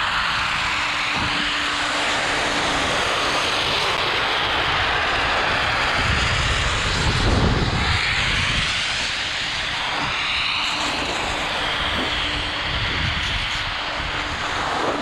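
Wind rushing over the pole-mounted action camera's microphone together with skis scraping and carving on hard-packed snow during a fast run, swelling about halfway through.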